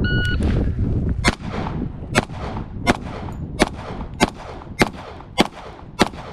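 A shot timer beeps once. About a second later a Colt Government Model 1911 .45 fires eight shots of 230-grain hardball in a steady string, about one and a half shots a second.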